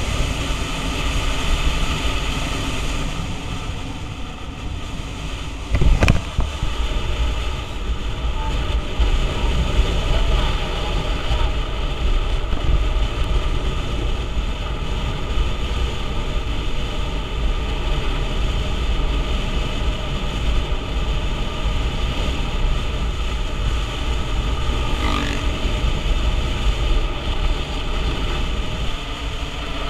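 A motor scooter being ridden: steady engine and road noise under heavy wind buffeting on a helmet-mounted microphone. A sharp knock sounds about six seconds in.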